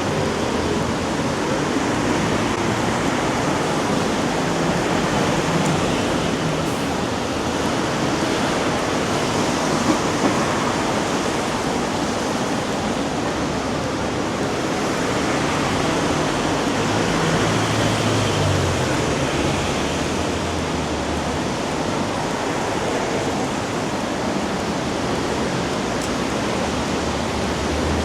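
Steady hiss of rain falling on wet city streets, with a low rumble that swells about two-thirds of the way through.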